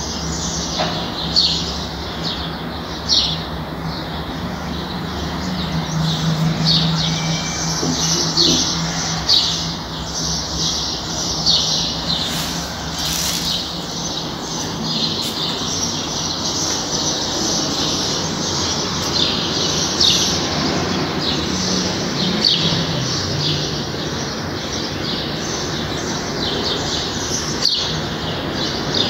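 Birds chirping: short high calls repeat irregularly, about one every second, over a steady background hiss.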